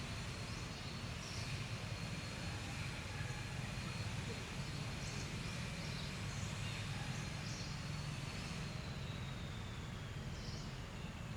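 Steady low outdoor rumble, like distant engine noise. A faint thin high whine slides downward in pitch in the last few seconds, and a few faint high chirps come and go.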